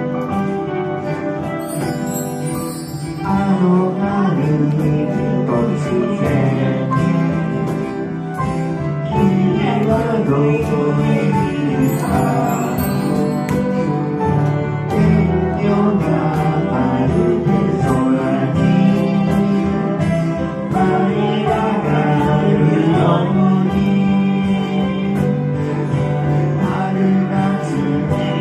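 A song performed live: a singer with instrumental accompaniment, the voice wavering with vibrato on held notes.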